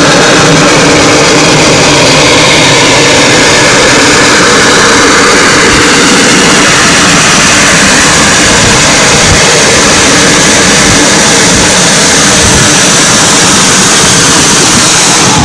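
Steam locomotive at work: a loud, steady rush of noise with no clear beat.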